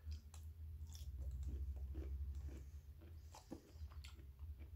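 A person biting into a pickle and chewing it: a faint, irregular run of small crunches.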